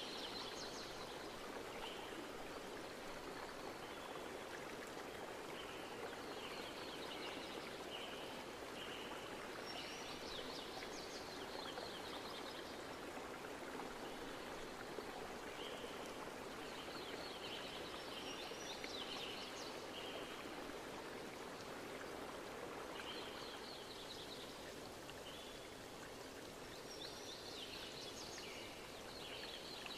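Steady rush of flowing water, with clusters of bird chirps and twitters every few seconds.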